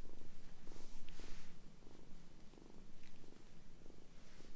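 Kitten purring steadily while being stroked, the purr pulsing evenly with each breath, with a brief rustle of hands on fabric about a second in.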